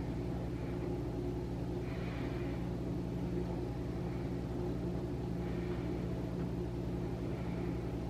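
Steady low background hum with several fixed pitches, unchanging throughout. Faint soft rustles of synthetic wig hair being combed and lifted come every second or two.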